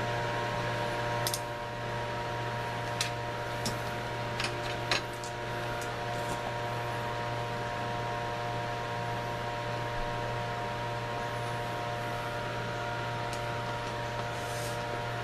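A steady mechanical hum of shop equipment, with a few light clicks and taps in the first few seconds.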